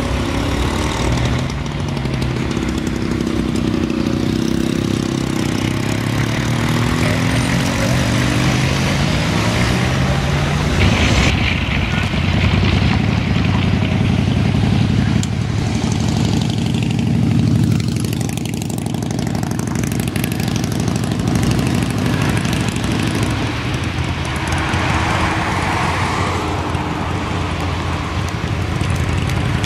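Lockheed L-1049 Super Constellation's four Wright R-3350 radial piston engines running at low taxi power, a steady drone whose several engine tones drift in and out of step with one another. The sound changes abruptly about eleven seconds in and again at the very end.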